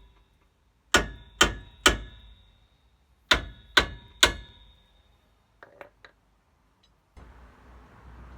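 Hammer blows on steel in two quick sets of three, each strike ringing briefly, working at a seized, over-tightened brake caliper bolt on a Ford Transit Mk7. A few light clicks follow, then a soft rustling noise near the end.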